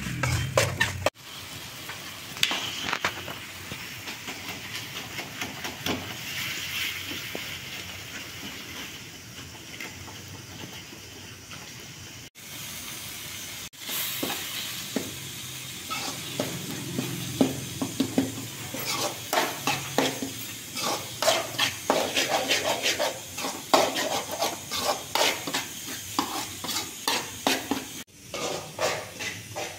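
Tomato and onion masala sizzling in a metal kadai while a metal spatula stirs it, scraping against the pan. The scraping strokes come thick and fast in the second half.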